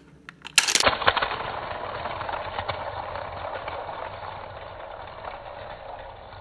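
Small plastic toy car rolling fast across a hard wooden floor: a sharp clatter as it sets off, then a steady rolling rattle of its wheels that slowly fades as it travels away.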